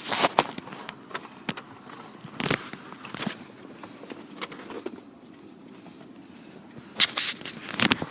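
Rustling and scattered clicks and knocks of someone shifting about and handling things, over a steady low background noise, with a busier cluster of rustling near the end.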